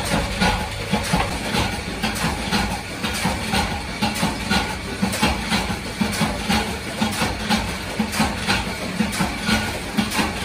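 Motor-driven rotary slitting machine running while sheet metal is fed through its circular blades and cut into strips: a steady hum under a rapid, uneven clatter of metal.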